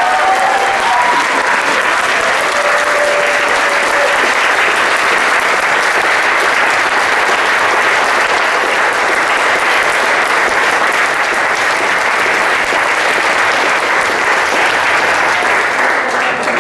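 Audience applauding steadily, with a few voices calling out over the clapping in the first few seconds.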